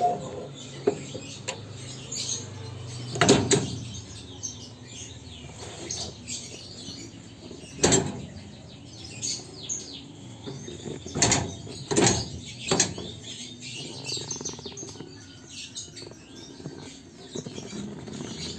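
Control levers of a Maxxi Bimo rice combine harvester being shifted by hand through their gated slots, giving several sharp metal clunks a few seconds apart, with small birds chirping throughout.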